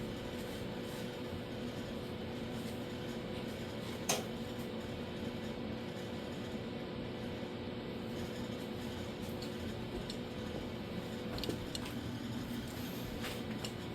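Steady electrical hum holding a few fixed low pitches, with one sharp click about four seconds in and a few faint ticks near the end.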